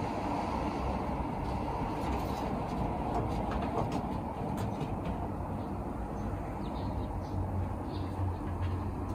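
Steady low rumbling background noise, with a few faint, short high chirps or ticks.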